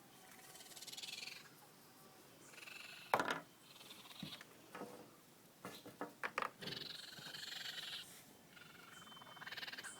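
Baby raccoons chittering and churring in repeated high, trilling bursts, with a loud sharp click about three seconds in and a quick run of clicks around six seconds.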